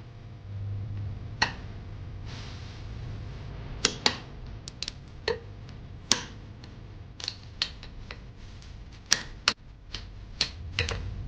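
About fifteen irregular sharp clicks and light metallic taps, a few ringing briefly, from small parts and hand tools being handled during assembly work, over a steady low hum.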